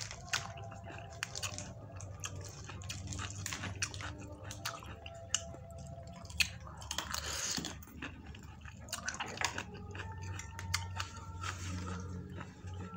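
Close-up eating sounds of noodles: wet chewing and a longer slurp about seven seconds in, with sharp clicks of a metal fork against the bowl throughout.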